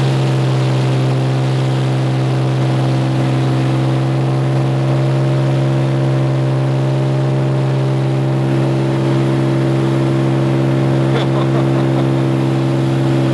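Cirrus light aircraft's piston engine and propeller droning steadily in flight, heard inside the cockpit at a constant power setting.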